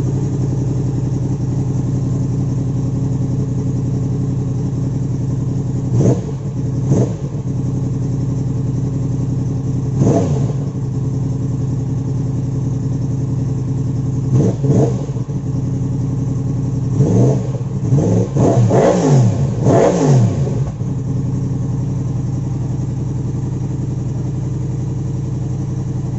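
A vehicle engine idling steadily and revved in short throttle blips: single blips about six, seven and ten seconds in, a pair around fourteen to fifteen seconds, then a quick run of blips between seventeen and twenty-one seconds before it settles back to idle.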